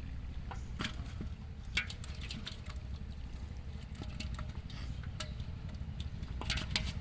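Irregular small splashes and drips of water over a steady low rumble.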